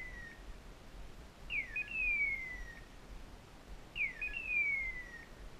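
Hunting dog's electronic beeper collar sounding a two-part falling chirp, a short steep drop followed by a longer downward glide. It repeats every two and a half seconds or so.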